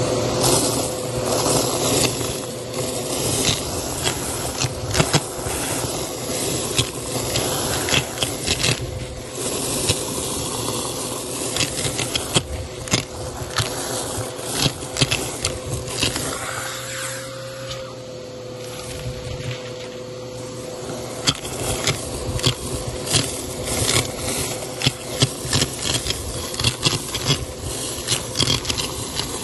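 Vacuum cleaner running with its hose sucking up dry red lentils and coins from a plastic tub: a steady motor hum with a constant rattle and sharp clicking of lentils and coins striking the nozzle, hose and tub.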